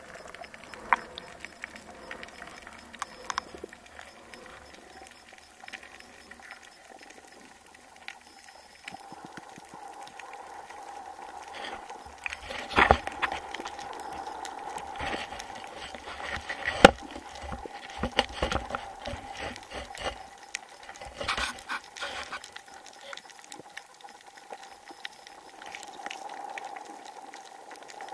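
Underwater ambience picked up by a camera beneath the surface: a muffled wash with a faint steady hum and scattered clicks and knocks, the loudest about 13 and 17 seconds in.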